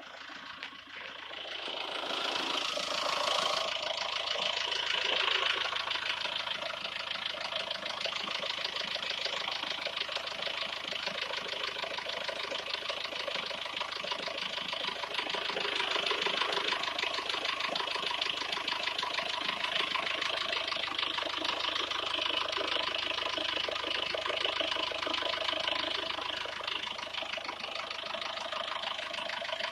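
SsangYong New Actyon engine running at idle with a fast, even ticking or rattling running through it: the extraneous engine noise the owner is asking about. The sound swells over the first couple of seconds, then holds steady.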